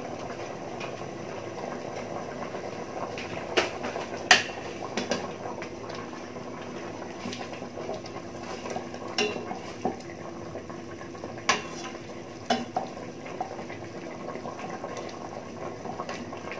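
Pork and potato stew simmering in an open stainless steel pot, while a metal spoon stirs it and clinks sharply against the pot's sides and rim several times, loudest about four seconds in.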